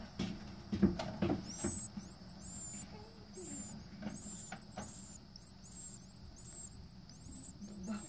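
Sparrow nestlings begging in the nest: thin, very high squeaking chirps, about two a second, starting about two seconds in. A few sharp knocks and rustles come in the first two seconds.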